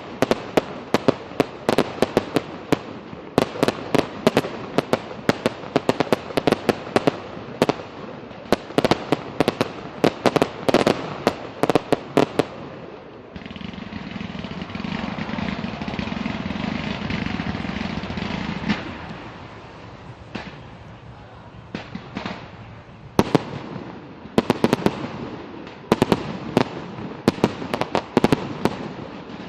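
Fireworks going off: dense rapid crackling and banging, a steadier rushing stretch of about six seconds just before the middle, then more bursts of rapid crackling near the end.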